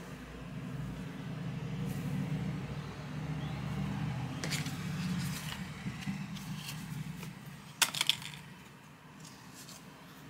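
Paper and card packaging being handled, with a few light clicks and then a sharp double click about eight seconds in. Underneath is a steady low hum that fades out after about seven seconds.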